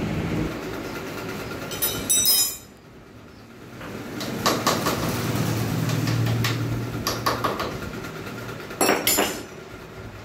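Metal engine parts clinking and tapping as they are handled on the clutch side of a Bajaj Pulsar 150 engine, with a sharp clatter about two seconds in and again near the end, over a low steady rumble.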